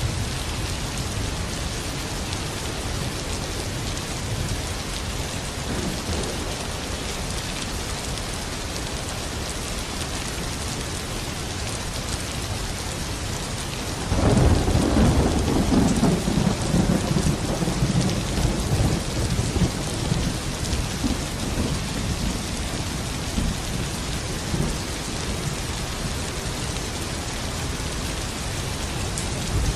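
Steady rain falling. About halfway through, a roll of thunder comes in suddenly, rumbles low and loud for several seconds, and fades away under the rain.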